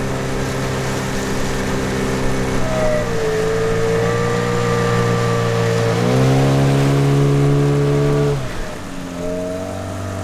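Hidea 9.8 hp outboard motor running, its revs dropping about three seconds in, rising again around six seconds and falling back near the end as the throttle is worked.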